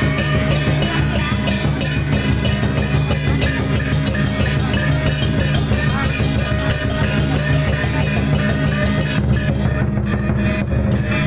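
Loud music driven by fast, steady drumming with a heavy bass line.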